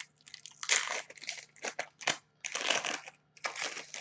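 Foil trading-card pack wrapper crinkling as it is opened by hand, in several short bursts.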